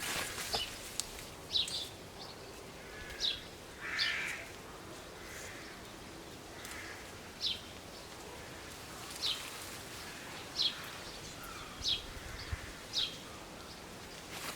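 A bird calling outdoors, repeating a short high chirp every second or two over a faint steady hiss. A few sharp clicks come near the start.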